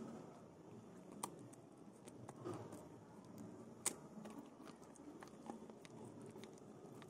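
Dog chewing and biting on a piece of bread: quiet chewing with scattered faint clicks, and a sharper click about a second in and again near four seconds.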